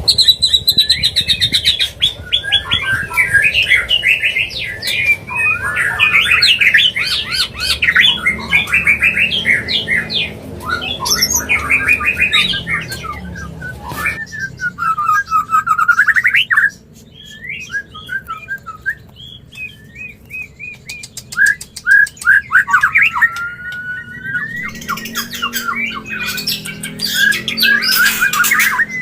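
White-rumped shamas giving rapid chattering, squawking breeding calls, the mating calls used to bring caged shamas into breeding condition. The calls thin out for a few seconds past the middle, then pick up again.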